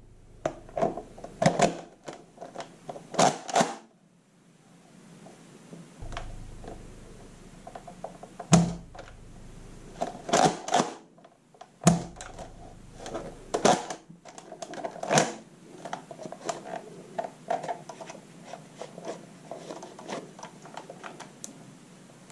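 Plastic clicks, knocks and rattles of a Nerf blaster and its parts being handled, in irregular clusters, with a single heavier knock about eight seconds in and a run of small ticks near the end.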